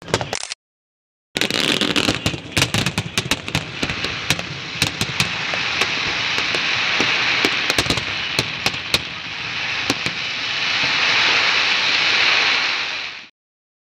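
Fireworks finale: a rapid string of shell bursts and sharp reports over dense crackling, swelling into a continuous crackle near the end, then cutting off suddenly.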